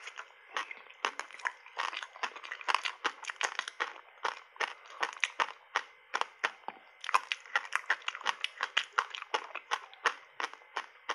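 Close-miked crunching of refrozen ice coated in matcha powder being chewed: an irregular run of sharp crunches, several a second.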